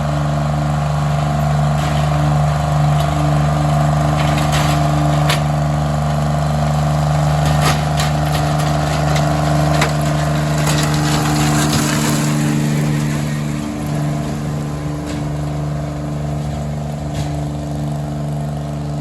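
Engine of a railroad maintenance-of-way machine running steadily, with scattered sharp clicks and knocks. About twelve seconds in, the engine note eases and becomes duller.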